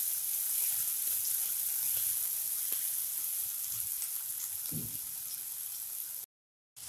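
Chopped onions sizzling in hot oil in a kadhai, a steady hiss as they are sautéed towards soft and light brown. The sizzle cuts off abruptly for a moment near the end.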